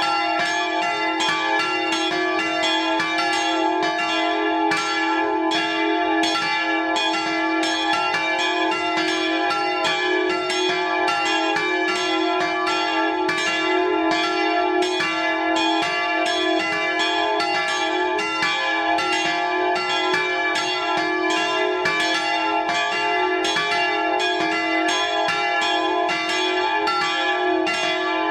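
Swinging bronze church bells of a peal tuned D, F and G-sharp, cast by the Fischer foundry in Trnava, ringing together close up in the belfry. Clapper strikes come several times a second and overlap into a continuous, steady ringing.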